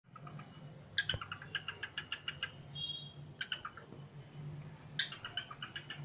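Cockatiel chattering: quick runs of short, high chirps, about a second in, again around three and a half seconds, and from five seconds on, over a faint steady low hum.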